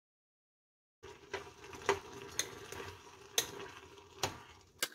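A metal spoon stirring rice in boiling water in a pot, clinking sharply against the pot about six times over a steady bubbling. The rice has just come to the boil and is being stirred so the starchy water doesn't boil over. The sound starts about a second in.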